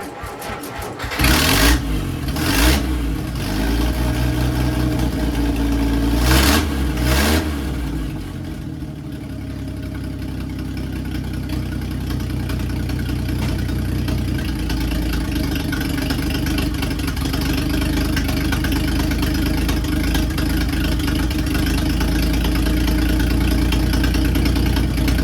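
1952 Dodge Meadowbrook's flathead straight-six being cranked on starting fluid: it catches about a second in, runs unevenly with a few brief loud bursts over the next several seconds, then settles into a steady idle.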